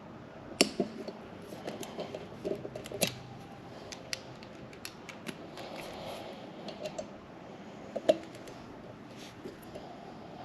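Metallic clicking and ticking of a cheap Pittsburgh click-type torque wrench with a 6 mm Allen bit, set to 156 inch-pounds, being worked on brake-rotor bolts. Three sharper clicks stand out among lighter ticks.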